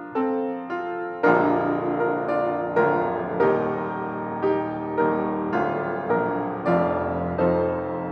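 Piano playing a hymn tune in slow chords, each struck and left to ring, about one or two chords a second.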